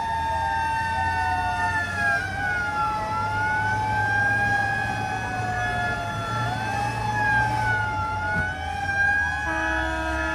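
Several fire engine sirens wailing together, their pitches rising and falling out of step, over a low engine rumble. About nine seconds in, a steady horn joins in.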